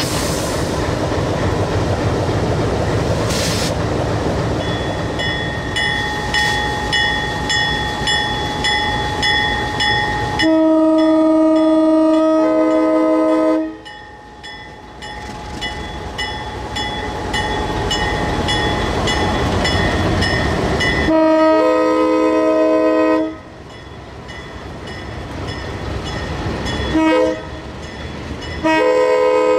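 Alco RS-11 diesel locomotive running as it rolls past, with a bell ringing steadily from about five seconds in. Its multi-tone horn then sounds the grade-crossing signal: two long blasts, a short one, and a long one starting near the end.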